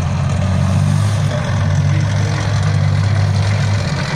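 Tracked infantry fighting vehicle's engine running as the vehicle drives, a loud, steady low drone.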